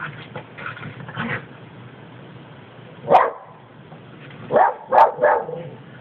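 Small dogs barking while playing: one bark about three seconds in, then three quick barks near the end, with softer barks in the first second or so.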